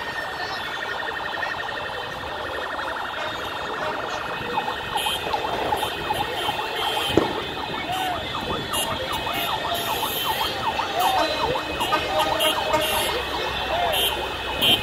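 Electronic sirens sounding: a steady tone at first, then from about four seconds in a rapid warbling yelp that repeats over and over and grows a little louder, with one sharp knock in the middle.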